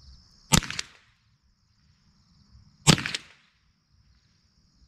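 Two shots from a Ruger 10/22 semi-automatic .22 LR rifle, about two and a half seconds apart, each a sharp crack with a short ringing tail.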